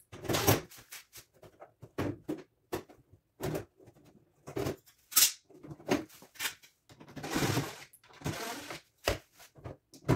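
Sheet-metal cover plates on top of an over-the-range microwave being handled and slid off to reach the blower fans: irregular rattles, scrapes and sharp clicks, with the sharpest click about five seconds in and a longer scrape about seven seconds in.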